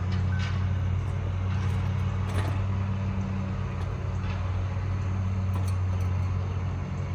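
Steady low mechanical hum, even and unchanging, with a few faint clicks and rustles of handling.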